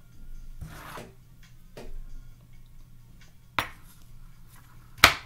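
Crunching and biting dry cornstarch chunks close to the microphone: a soft rustle, then two sharp cracks, one past the middle and a louder one near the end.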